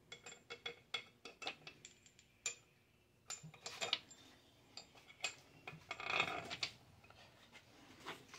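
Light metallic clinks and ticks of steel head bolts being handled and set into the bolt holes of a Ford 352 FE cylinder head by hand, with a short scraping rustle about six seconds in.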